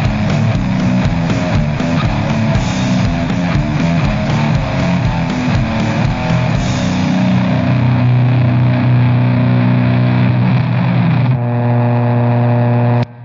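Heavy metal band demo recording: electric guitars over a fast, evenly hit beat. The beat stops about seven seconds in and the guitars hold a ringing chord, which cuts off suddenly just before the end.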